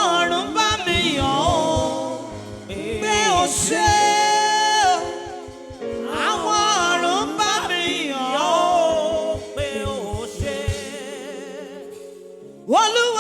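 Gospel singing in Yoruba: wordless vocal runs that bend and waver over sustained backing chords and a steady low beat.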